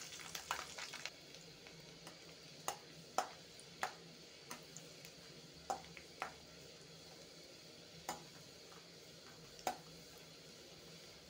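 Garlic cloves sizzling in hot oil with cumin seeds and dried red chillies in a kadai, a louder crackling hiss for about the first second, then a faint steady sizzle. A metal ladle stirs through it, knocking lightly against the pan about a dozen times.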